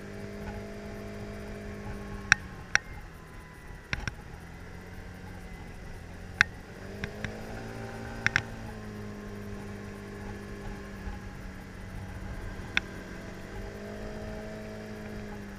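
Kymco scooter engine running while riding, its pitch easing down about two seconds in, rising again around seven to eight seconds and once more near the end. A handful of sharp clicks or knocks stand out louder than the engine.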